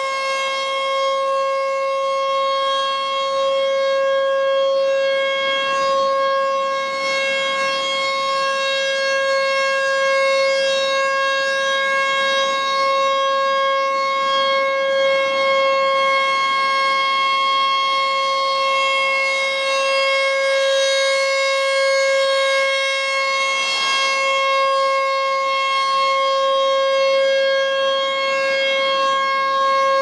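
ASC T-128 electronic rotating warning siren sounding a single steady tone during a routine test, its level swelling slightly as the horn head turns.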